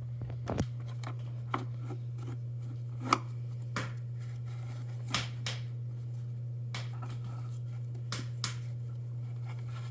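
Scattered sharp clicks and knocks of parts being handled while getting at a dirt bike's air filter, over a steady low hum.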